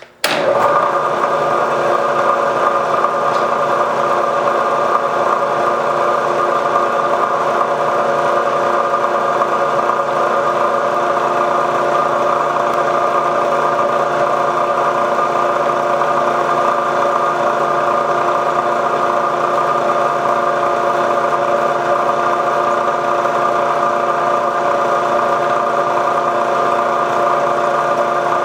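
Milling machine running steadily with an 11/64-inch solid carbide end mill, a steady hum and whine of several tones, while cutting the extractor slot in a Sako rifle bolt. The sound comes in abruptly just after the start.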